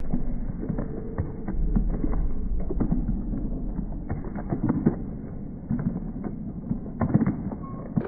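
Footfalls of runners' shoes knocking and creaking on a timber floor, many irregular knocks over a low rumble, heard through a muffled, dull recording.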